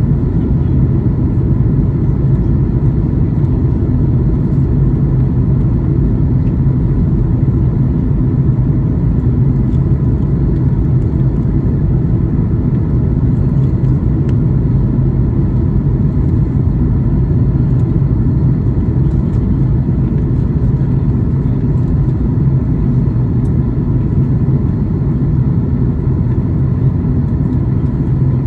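Steady low rumble of engine and airflow noise inside the cabin of a Boeing 737 MAX 8 airliner in flight, with its CFM LEAP-1B engines running evenly.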